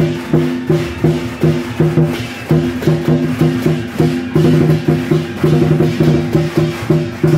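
Temple procession percussion, drum and gongs, beating a steady rhythm of about two to three strokes a second.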